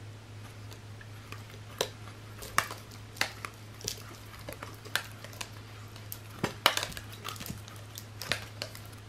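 Irregular light clicks and ticks from a plastic bottle and a line spool being handled while fishing line is wound onto the bottle, over a steady low hum.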